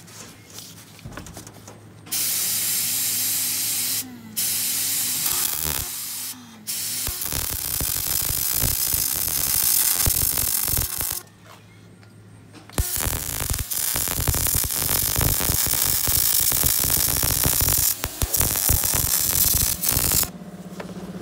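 Semi-automatic (MIG) welder arc crackling and hissing as it welds steel truck-bed floor plate. It comes in separate welds that start and stop sharply: two short ones of about two seconds, then two longer runs of about five and seven seconds with a short pause between them.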